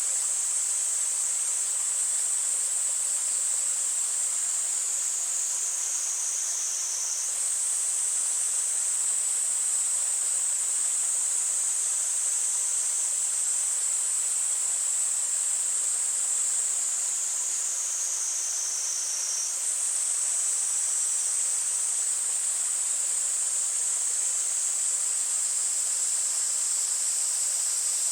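Cicadas in full summer chorus, a steady high-pitched drone that twice sags lower in pitch for a couple of seconds and then jumps straight back up. Beneath it is a faint steady rush of stream water.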